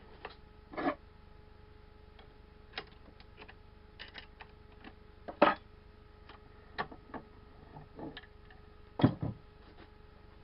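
Scattered clicks and light metallic knocks of a turned steel guide bar being handled and test-fitted into its mating part, with two louder knocks, one about halfway and one near the end.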